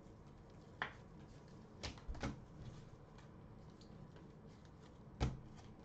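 Trading cards and hard plastic toploaders being handled on a table: a few sharp clicks and taps, one about a second in, a short cluster around two seconds, and the loudest near the end.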